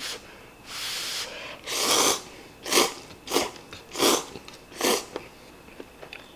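A person slurping thin instant cup noodles: two longer slurps, then four short, sharp slurps in quick succession, each sucking air in with the noodles.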